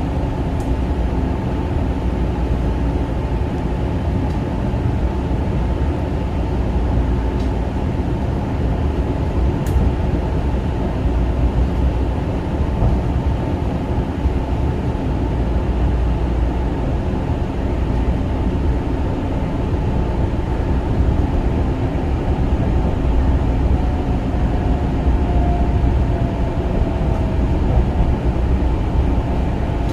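Kawasaki M9 electric multiple-unit railcar running along the track: a steady rumble of wheels on rail with running-gear noise.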